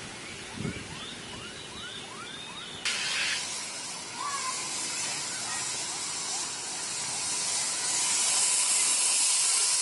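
A steady high-pitched hiss comes in suddenly about three seconds in and grows louder. Before it there are faint chirps and a couple of dull thumps.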